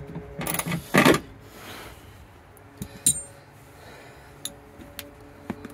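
Hand ratchet and 10 mm socket clicking in a quick loud run about half a second in, on a seatbelt anchor bolt that has just broken free. A few scattered light metal clinks follow, one with a brief high ring.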